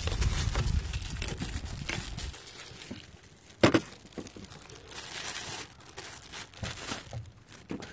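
Thin wire being wound around a slab of pork belly by hands in disposable plastic gloves: crinkling of the gloves and small scrapes of the wire, with one sharp click about three and a half seconds in.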